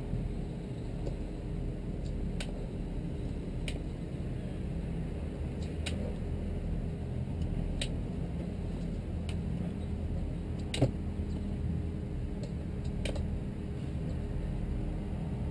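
Sea Ray 330 Sundancer cruiser's inboard engines idling with a steady low hum, heard through the bow-mounted camera. A few sharp clicks are scattered through it, with one louder knock about eleven seconds in.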